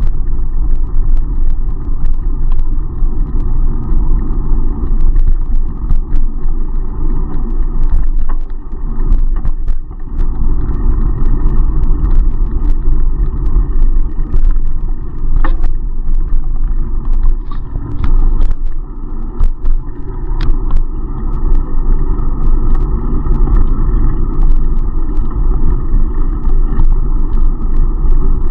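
Steady loud rumble of wind buffeting the microphone of a bike-mounted action camera while the bicycle is ridden, with scattered sharp clicks over it.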